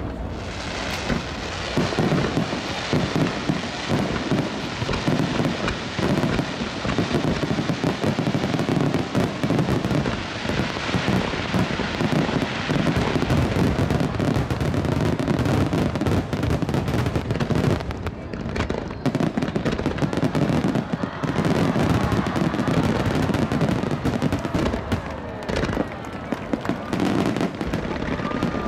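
Fireworks display: a dense, continuous barrage of aerial shells bursting and crackling, many overlapping at once, starting about a second in.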